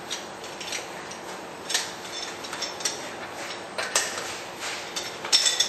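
Irregular metallic clicks and clinks of a hand wheel-nut wrench being worked on a truck's wheel nuts.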